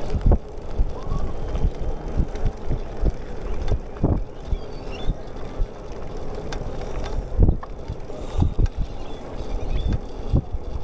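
Wind buffeting the microphone of a camera riding on a moving bicycle: a steady low rush broken by many irregular gusty thumps.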